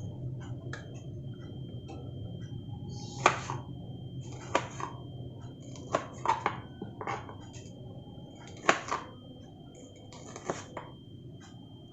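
Metal utensils clanking against a stainless steel pan during cooking: about six sharp clanks, the loudest about three seconds in and about nine seconds in, over a steady low hum.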